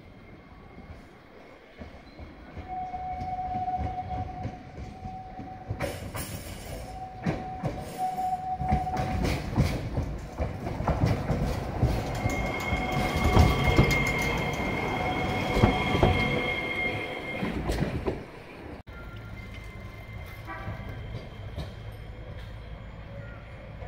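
Iyotetsu 5000-series low-floor tram running round a tight curve and passing close, its wheels squealing in steady tones over a rumble, with clicks from the rail joints. The squeal is loudest as it passes. Near the end, after a cut, a steady low hum of a tram pulling into the station.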